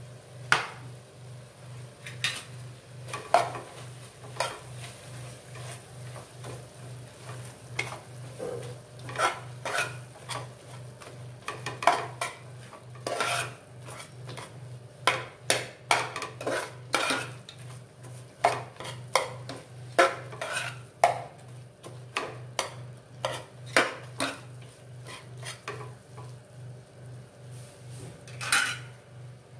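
Stainless-steel ladle scraping and clinking against the sides and bottom of an aluminium pressure cooker, stirring spice powder into frying vegetables. The strokes come irregularly, as short scrapes and knocks.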